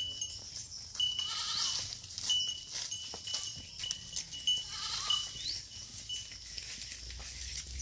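Livestock bleating twice, about a second in and again around five seconds, over a faint repeated high ringing.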